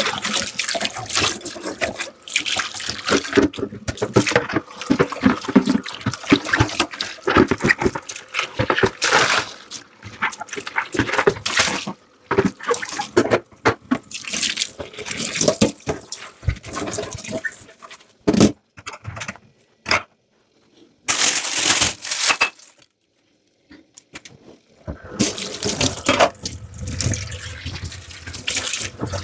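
Dishes being hand-washed in a kitchen sink: tap water running and splashing, with many quick clinks and knocks of dishes. Two short silent pauses come past the middle, then water runs again steadily near the end.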